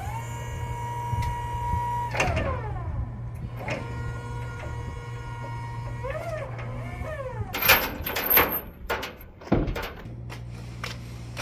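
Electric motor of a power tool spinning up, running at a steady pitch and winding down, twice. A few sharp knocks and clatter follow near the end, over a steady low hum.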